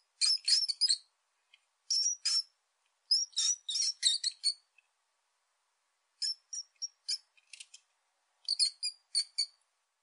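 High-pitched chirping calls in about five short bursts of several quick, sharp notes each, with silent pauses between the bursts.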